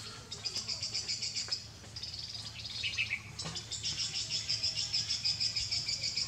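Background chirping of insects and birds: a high, rapidly pulsing trill that keeps on with a couple of short breaks, with a brief falling chirp about three seconds in.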